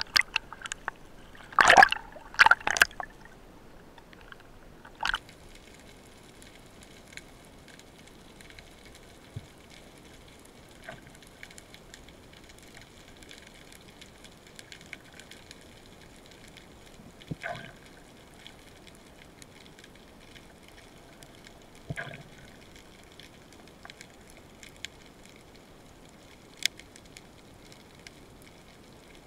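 Water splashing at the surface in the first few seconds as a spearfisherman goes under, then steady underwater hiss through the camera housing, broken by a few scattered sharp knocks.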